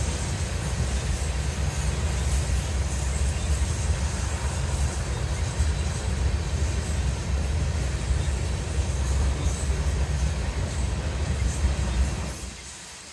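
Freight train of covered grain hopper cars rolling past, a steady low rumble of wheels on rail. The sound drops away suddenly near the end.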